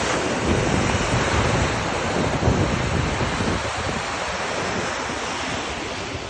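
Ocean surf: waves breaking and washing up the beach in a continuous rush, swelling a little about a second in and easing slightly near the end, with wind buffeting the microphone.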